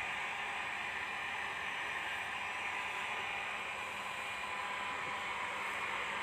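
Steady even hiss with a faint underlying hum, level throughout with no distinct events.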